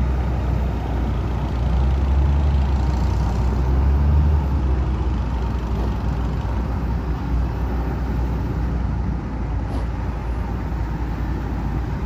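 Heavy diesel engines of a Kobelco excavator and a dump truck running hard, a deep steady rumble that swells about two seconds in and eases off after about four seconds, as the truck is worked out of deep mud.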